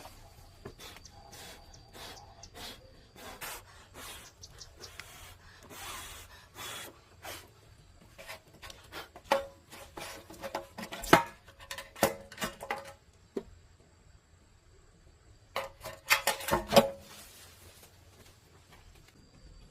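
Hand tools scraping and rubbing on metal parts, with clinks of metal on metal that ring briefly, busiest around the middle and again near the end.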